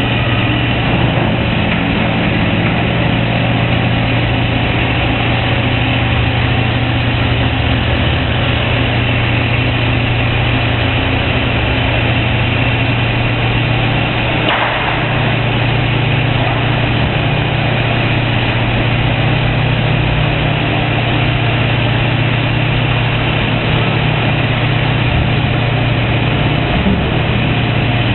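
Large tracked excavator's diesel engine running steadily at working speed, with a constant low hum. A single short knock sounds about halfway through.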